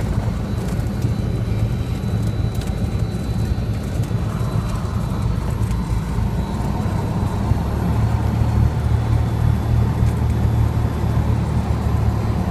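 Piston engine and propeller of a single-engine high-wing light plane droning steadily, heard from inside the cabin as it rolls along the runway; the low drone shifts about halfway through.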